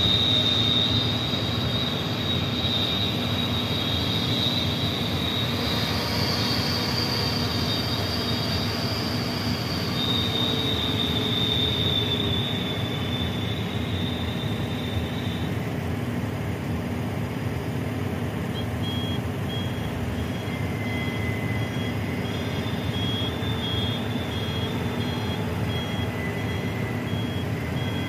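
Loaded dump truck's diesel engine running as it crawls over rough ground, with high squealing from the truck through the first half. From about two-thirds of the way in, its reversing alarm beeps steadily as it backs up.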